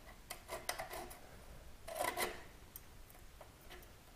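Faint metal-on-metal scraping and scattered clicks as a motorcycle slip-on exhaust is worked onto its mid pipe, with a louder scrape about two seconds in.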